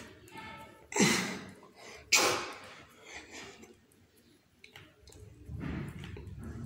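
A man breathing out hard with the effort of push-ups: two loud, sharp exhalations about a second apart, then softer, longer breaths near the end.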